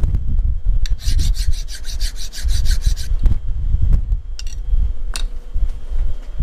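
Hand file scraping along the edge of a machined steel bar held in a milling-machine vise, deburring it: a run of quick, even strokes lasting about two seconds from about a second in, then a few single scrapes and knocks.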